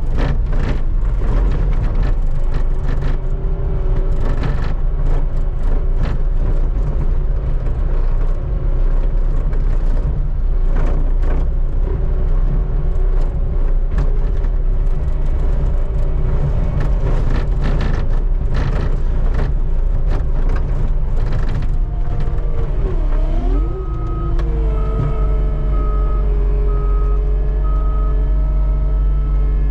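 Skid steer's diesel engine running under load while its bucket scrapes along the pavement, with repeated knocks and clatters. About 23 seconds in the engine note dips and then steadies, and a backup alarm starts beeping evenly.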